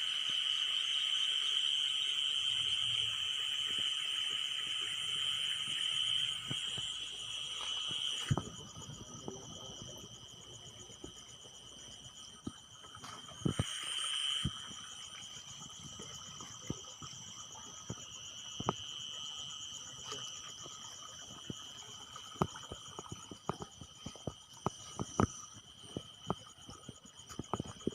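Steady high-pitched chirring of insects, louder for the first eight seconds or so and then fainter, with scattered sharp clicks and taps.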